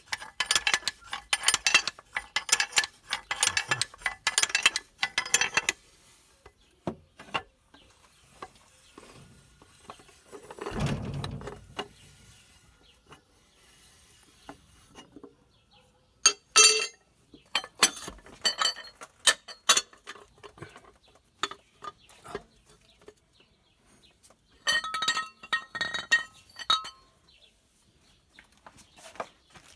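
Metal tools and engine parts clinking and tapping against each other: a quick run of clinks for the first several seconds, then scattered ringing metal taps with pauses between them.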